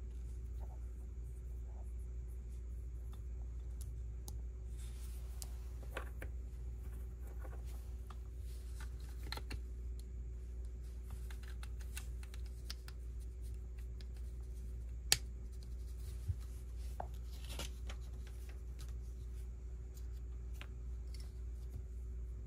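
Plastic Lego pieces being handled and pressed together: scattered light clicks and rustles, with one sharper click about two-thirds of the way through, over a steady low hum.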